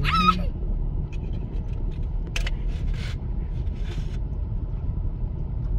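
Steady low rumble of a car driving slowly, heard from inside the cabin, with a single sharp click about two and a half seconds in.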